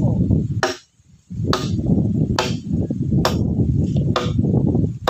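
A hand tool striking in a steady rhythm, a little under one blow a second, as work on wooden posts goes on; each blow is sharp with a brief ring, over a steady low rumble.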